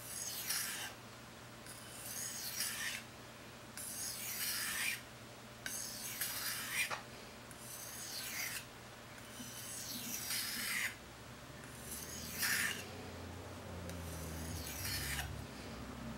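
Blade of a high-carbon steel kitchen knife drawn lengthwise across a wet Japanese whetstone to sharpen its bevel. There are about eight separate strokes, each about a second long and roughly two seconds apart.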